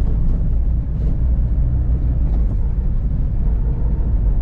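Steady low rumble of engine and road noise heard inside the cabin of a van driving at speed on a highway.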